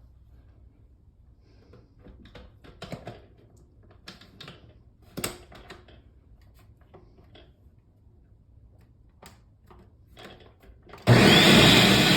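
Light knocks and clinks of the jar being handled, then about eleven seconds in a countertop blender motor starts suddenly with a rising whine and runs loud and steady, blending soaked cashews and water into cashew cream.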